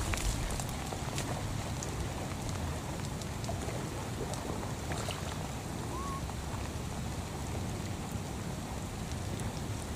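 Steady rain falling on shallow standing water and grass, an even hiss dotted with small drop ticks.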